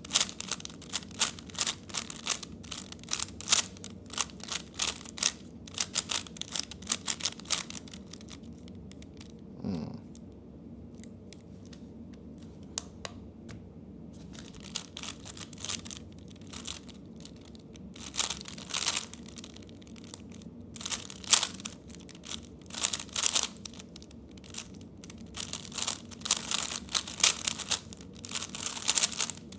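3x3 speedcube's plastic layers being turned quickly, a dense clatter of clicks and clacks. The turning runs for about eight seconds, goes quiet for several seconds, then starts again a little past the middle and carries on in bursts.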